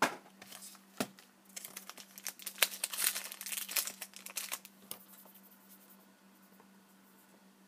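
Foil hockey card pack wrappers crinkling and crackling as the packs are handled, with a few sharp clicks and taps, for about five seconds before it goes quiet.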